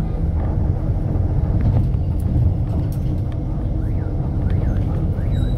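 Steady low rumble of a city bus running through traffic, its engine and road noise heard from inside the bus.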